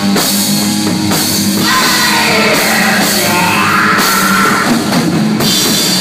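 Live heavy rock band playing loud: electric guitar and drum kit, with sharp crashes about every second or so.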